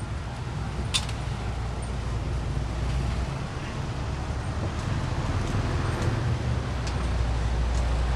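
Steady low rumble of street traffic, with a sharp click about a second in and a few fainter ticks later.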